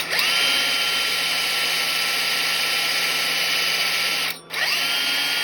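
Electric drill boring an entrance hole in a yew birdhouse: the motor spins up to a steady whine, stops briefly about four seconds in, then spins up again.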